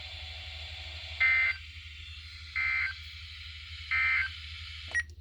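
NOAA Weather Radio's EAS/SAME end-of-message data bursts ('NNNN'), heard through a weather radio receiver: three short, buzzy digital bursts about a second and a half apart, signalling the end of the weekly test broadcast. Under them run a steady low hum and hiss, and a sharp click comes near the end.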